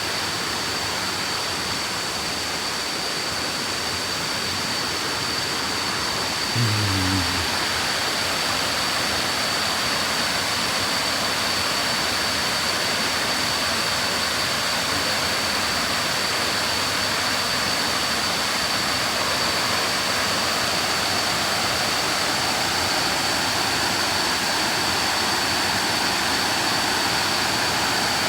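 Waterfall rushing, a steady even roar of falling water, with a thin high-pitched whine held over it. A brief low sound comes in about seven seconds in.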